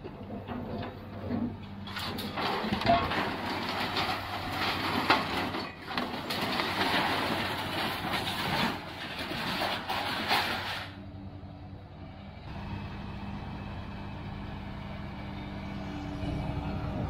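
Scrap steel scraping and clanking as the orange-peel grapple of a Liebherr material handler grabs a load out of a trailer, loud for about nine seconds and stopping suddenly. Then the machine's diesel engine runs steadily.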